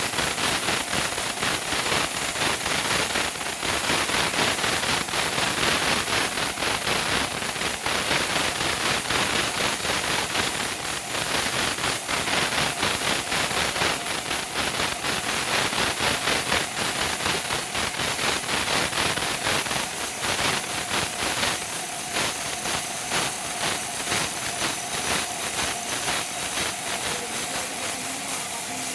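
Sawmill saw cutting steadily through a large log: a loud, dense, continuous sawing noise. From about twenty seconds in, a steady tone joins it.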